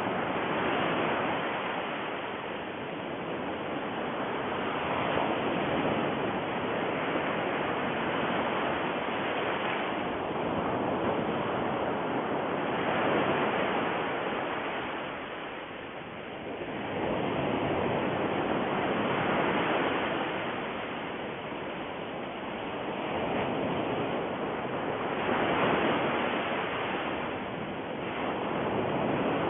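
Ocean surf: a steady rush of waves that swells and falls back every few seconds, with a deep dip about sixteen seconds in.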